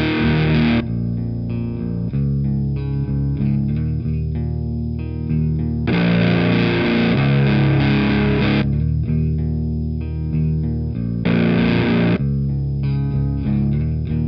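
Electric guitar riff played through a Sunn Model T–style drive pedal, heavily distorted chords alternating with cleaner, lighter passages of separate notes. The dense distorted chords come three times, near the start, around the middle and shortly after.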